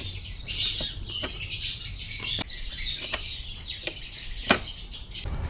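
A handful of sharp metallic clicks and taps, the loudest about four and a half seconds in, as the split pin and pin are worked out of a motorcycle's passenger foot-peg mount, with birds chirping steadily behind.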